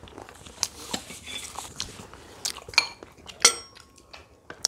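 Forks and chopsticks clicking against plates during a meal, with some chewing. Two sharper clinks ring briefly, at about three and three and a half seconds in, the second the loudest.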